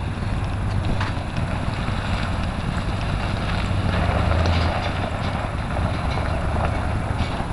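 Wind buffeting the microphone, a steady low rumble with a few faint clicks.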